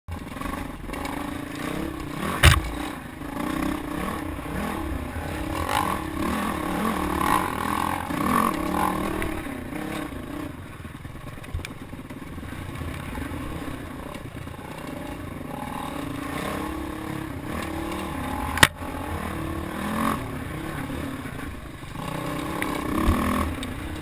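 Dirt bike engine running on a rough trail, its revs rising and falling as the throttle is worked, heard close from the bike itself. Two sharp knocks stand out, one about two and a half seconds in and one about three-quarters of the way through, with a low rumble of wind on the microphone underneath.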